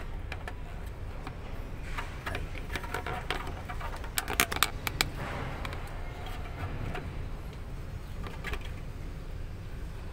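Handling noise: scattered light clicks and clinks, with a quick cluster of sharp metallic clicks about four and a half seconds in, over a steady low rumble.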